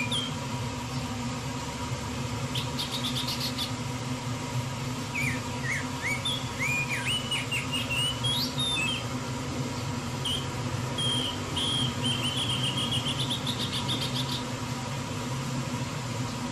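A small bird chirping repeatedly, with short rising and falling chirps, a quick trill and a run of chirps near the end, over a steady low hum.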